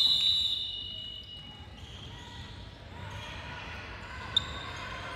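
Tail end of a referee's whistle blast, a steady shrill tone that fades over the first second or so. It is followed by the sounds of basketball play in a gym, with the ball bouncing on the court and a single brief, sharp high note about four seconds in.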